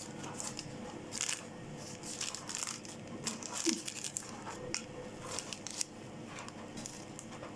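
A paper shopping receipt handled close to the microphone, crinkling and rustling in short, irregular crackles.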